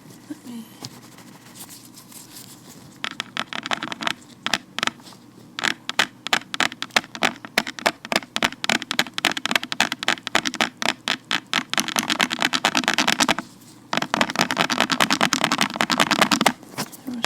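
Vinyl-latex gloved fingers scratching and rubbing close to the microphone. It is faint at first, then from about three seconds in comes a quick run of scratchy strokes. Near the end it turns into two longer stretches of steady rubbing.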